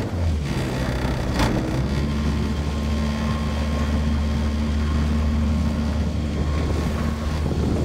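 Motorboat engine running steadily at low revs, a low even hum that starts just after the opening. A single sharp click comes about a second and a half in.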